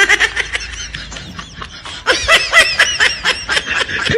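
High-pitched laughter in quick, repeated bursts, louder from about halfway through.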